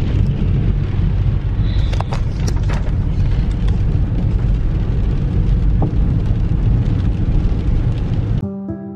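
Inside a moving car in pouring rain: steady low road and engine rumble with rain pattering and clicking on the windscreen and roof. It cuts off suddenly near the end.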